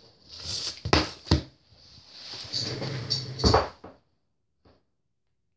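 Close handling noise: rustling and shuffling with a few sharp knocks, as books and objects are moved about next to the microphone, stopping about four seconds in.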